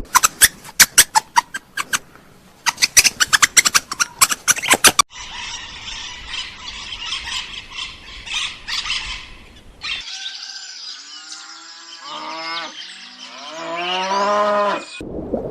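Animal calls in three parts: a run of sharp, rapid clicks for about five seconds, then a busy high-pitched chatter, then a series of pitched calls that rise in pitch, growing louder toward the end.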